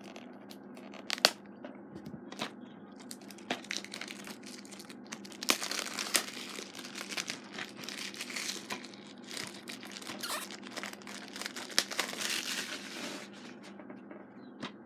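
Plastic shrink-wrap on a DVD case crinkling and tearing as it is cut open and pulled off, with a few sharp clicks in the first few seconds and the busiest rustling in the second half.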